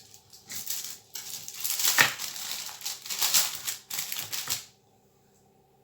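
A knife cutting through thin roti wrappers, a rapid crackling and scraping that stops sharply about three-quarters of the way through.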